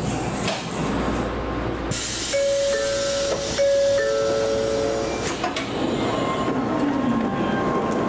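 Tokaido Shinkansen running, heard from on board: a steady rumble. About two seconds in, a louder rushing hiss sweeps in for some three seconds, with a few held tones sounding together with it and ending around the same time.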